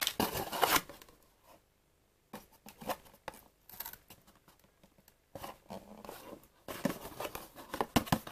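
Paper tea-bag sachets and a cardboard tea box being handled, rustling and crinkling in three bursts with short quiet gaps between them.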